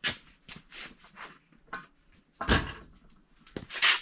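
Metal engine parts being handled: a few separate knocks and clatters. The loudest is a heavier knock about two and a half seconds in, and a short scraping rustle comes near the end.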